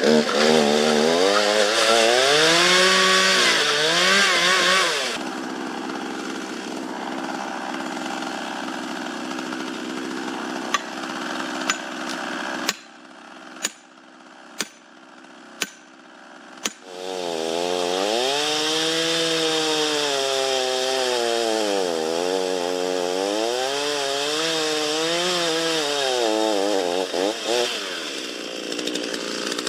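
Petrol chainsaw cutting round a tree stump, its engine pitch rising and falling as the chain bites and eases. Midway the saw drops away for a few seconds, with several sharp knocks about a second apart, then it cuts again.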